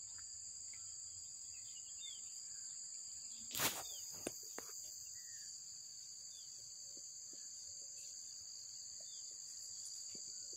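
Steady high-pitched drone of crickets or similar insects, with a few short bird chirps. A single sharp knock sounds about three and a half seconds in.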